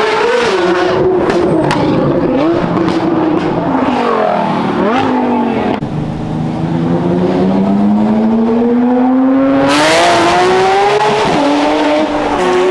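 Sports cars with loud modified exhausts accelerating hard past one after another, each engine note climbing in pitch and dropping back at the gear changes, with one long pull in the second half.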